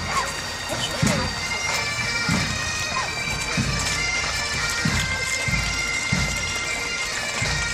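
Pipe band bagpipes playing a march, with steady drones under the chanter tune and low thumps about once a second.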